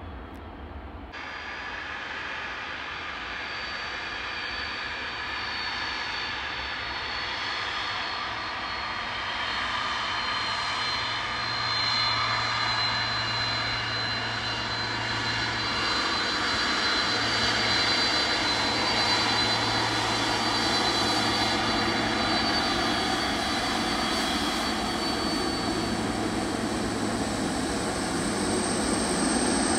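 Jet airliner's engines on the airport runway, growing steadily louder as the aircraft comes closer, with a thin steady high-pitched whine over the engine noise.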